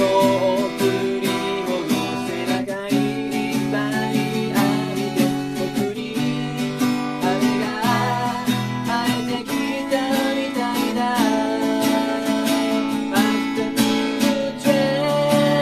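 A man singing while strumming chords on a Yamaha acoustic guitar.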